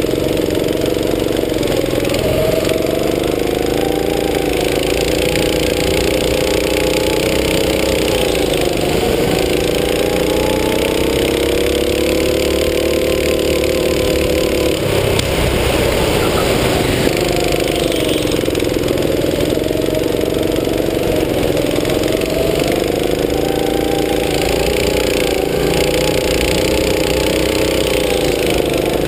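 Go-kart petrol engine running hard. Its pitch repeatedly climbs and drops as the throttle is opened and eased around the track.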